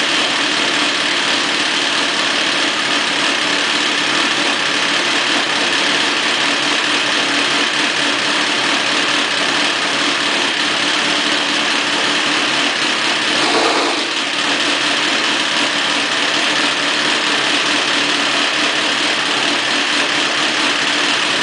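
1999 Kawasaki ZX-9R's inline-four engine idling steadily, with one short rise in revs about two-thirds of the way through.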